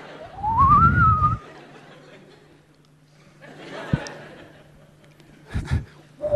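A person whistles one rising note lasting about a second, over a short burst of audience laughter. Then it goes quiet apart from a faint low hum and a little crowd noise, with two quick knocks near the end.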